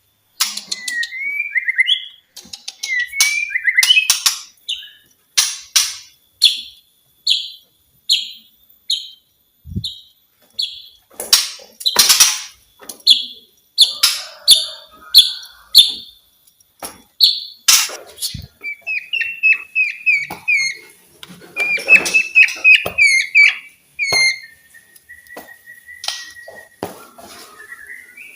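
White-rumped shama singing a varied song of loud whistled notes and sharp clicks: a steady series of short repeated notes about twice a second, then quick warbled runs and a long level whistle near the end.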